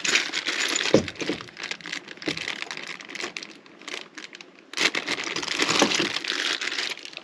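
Plastic packaging crinkling as the hardware for a swivel trailer jack is unwrapped, with metal mounting parts clinking against each other. There are a few sharp clicks in the first half and a longer spell of crinkling near the end.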